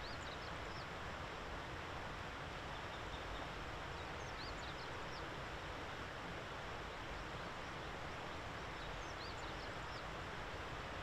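Steady outdoor background hiss with faint, high bird chirps in three short clusters, about four to five seconds apart.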